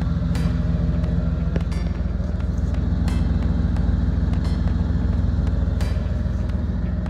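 Chevy K1500 pickup's engine idling steadily, a low even rumble heard from under the truck, with a few sharp clicks.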